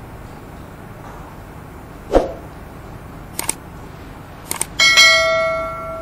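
Subscribe-button animation sound effects: a brief swoosh about two seconds in, then two quick double mouse clicks, then a notification bell ding that rings out and fades over about a second.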